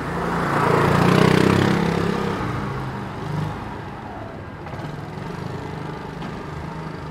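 A motor vehicle passing close by on a cobbled street: its engine and tyre noise swell to a peak about a second in and fade over the next two seconds, over a steady low hum of street traffic.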